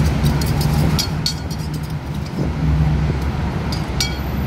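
Road traffic with a heavy vehicle's engine running low and steady, and a few short sharp clicks, two about a second in and two near the end.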